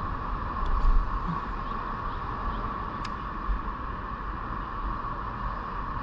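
Steady hum of road traffic crossing the bridge overhead, with a low rumble of wind on the microphone.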